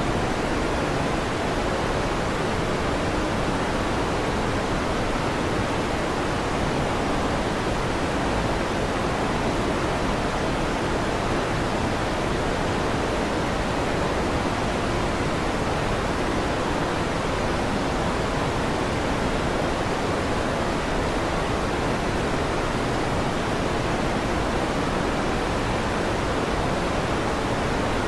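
Electric fan running steadily: an even, unchanging whoosh, fuller in the low and middle range than in the highs, with no thunder claps.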